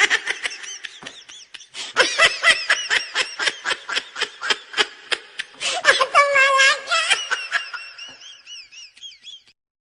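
Laughter in quick repeated bursts, with a drawn-out high-pitched squeal about six seconds in. The laughter fades away near the end.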